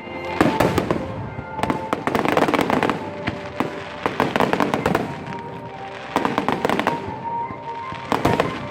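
Fireworks going off in repeated volleys of bangs and crackle, with music playing underneath.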